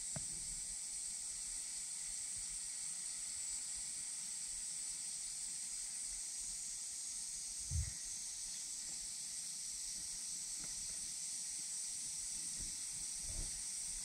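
A steady high-pitched hiss, with a brief low thump about eight seconds in and a fainter one near the end.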